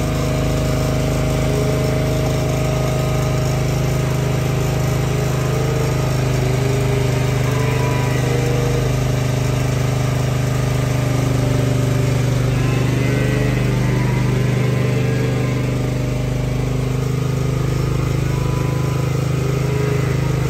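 An engine or machine motor running steadily, with a few short wavering higher-pitched tones over it.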